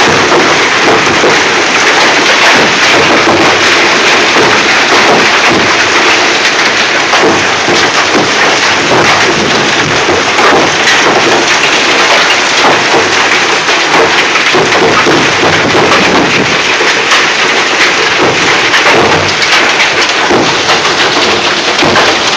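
Hail and heavy rain pelting down in a storm: a loud, steady clatter of countless small impacts.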